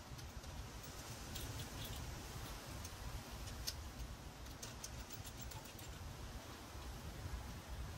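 Faint, irregular light clicks and ticks of small parts being handled while the front axle holder caps are fitted to the motorcycle's fork legs, over a low steady hum.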